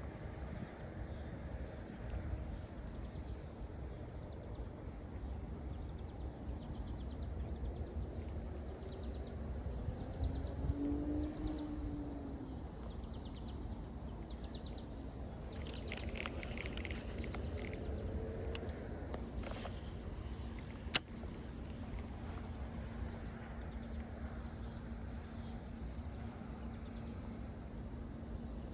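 Outdoor ambience with a steady high-pitched buzz of insects and a low rumble, broken by one sharp click about two-thirds of the way through.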